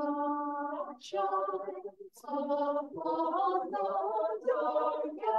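Small mixed church choir singing an anthem unaccompanied, in short phrases broken by brief pauses.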